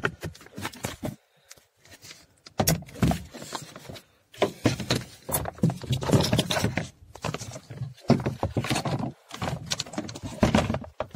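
Irregular clicks, knocks and rustling from hands working the plastic wiring connectors and interior door trim panel of a Kia Cerato door, as the plugs are pushed back together and the panel is handled.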